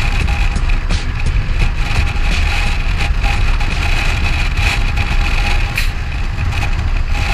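BMW F650CS Scarver motorcycle under way: its single-cylinder engine runs steadily under a heavy low rumble of wind on the helmet-mounted or bike-mounted action camera.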